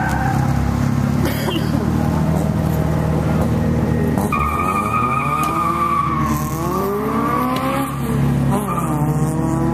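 A car engine idles steadily close by. About four seconds in, the car ahead launches hard: its engine revs and a high tire squeal wavers down and back up for three or four seconds as it pulls away.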